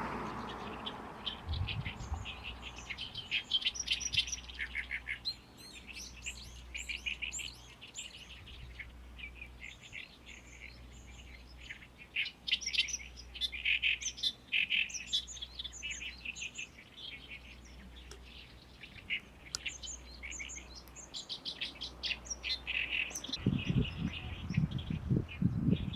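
Great reed warbler singing loud phrases of rapidly repeated chattering notes, with short pauses between phrases. A low rumble comes in near the end.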